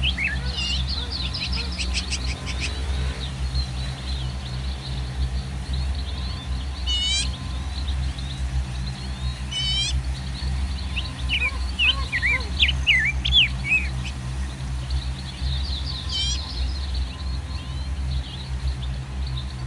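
Small birds chirping and calling in short rising and falling notes, with quick runs of falling notes now and then, over a steady low rumble.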